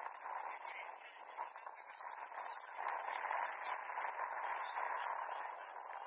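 Distant, muffled shouts and calls of players on a football pitch over a steady background hiss, growing louder about halfway through as play moves upfield.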